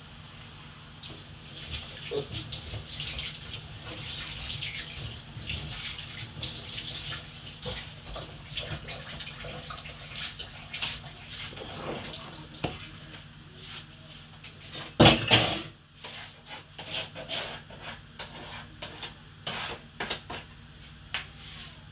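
Kitchen clatter of metal pots and utensils with water sounds, scattered knocks throughout and one loud clatter about 15 seconds in.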